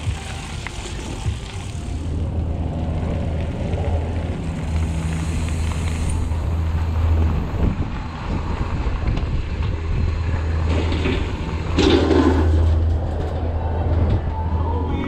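Wind and rolling noise on a handlebar-mounted camera as a mountain bike rides down a dirt and gravel path, a steady low rumble with a louder burst about twelve seconds in.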